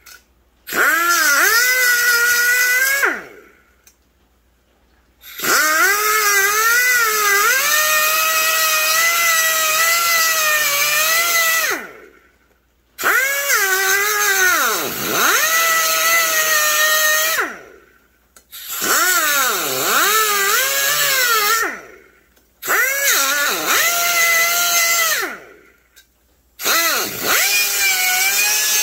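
Small handheld cutoff wheel cutting through a metal exhaust-pipe bracket. It runs in six bursts of a high whine with a cutting rasp, separated by short pauses, and the pitch sags each time the wheel bites into the metal, then recovers.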